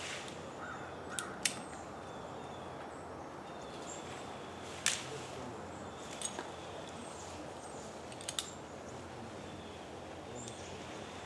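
Outdoor background noise with several sharp clicks or snaps, some in quick pairs, and faint high chirps.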